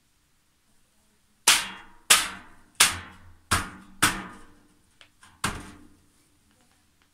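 Sharp metallic knocks on a white steel trolley's perforated shelf and frame as it is seated into place: six blows over about four seconds, each ringing briefly.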